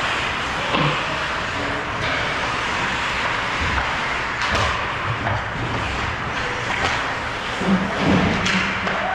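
Ice hockey play: a steady scraping of skates on the ice, broken by a few sharp knocks of sticks and puck, the loudest about 8 seconds in as play crowds the net.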